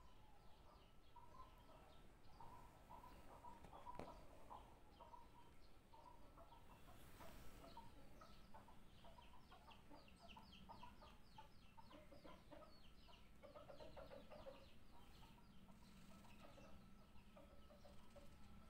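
Faint bird calls: many short, quick chirps coming in runs, thickest through the middle stretch, with a faint steady whine underneath.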